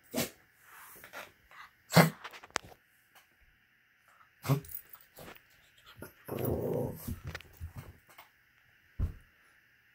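A small dog and a cat play-wrestling: a scuffle of short knocks and thumps, with about a second of growling near the middle.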